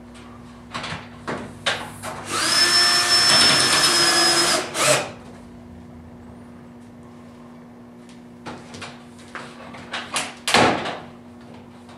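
Cordless drill running steadily for about three seconds with a high whine, driving a screw to fasten the metal standing-seam roof panel. Short knocks and rattles of the metal panel being handled come before it and toward the end, the loudest a little past ten seconds in.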